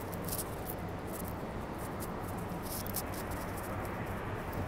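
Light irregular scratching and rustling from a hand-held phone's microphone being handled while walking, over a steady low background hum.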